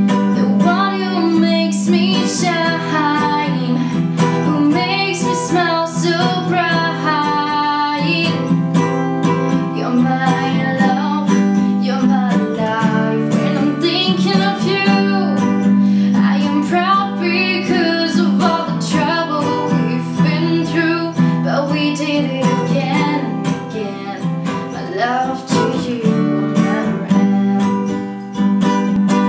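Acoustic guitar strummed steadily, with a female voice singing a melody over it.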